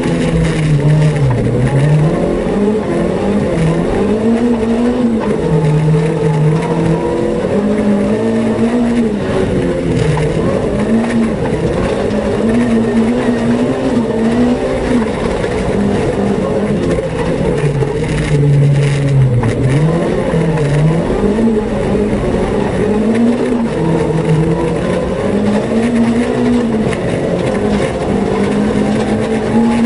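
Renault Twingo rally car's engine heard from inside the cabin, driven hard on dirt, its revs climbing and dropping back again and again.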